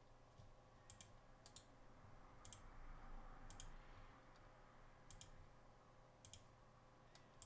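Faint computer mouse clicks, about eight short, quick clicks spaced irregularly, over a faint steady hum.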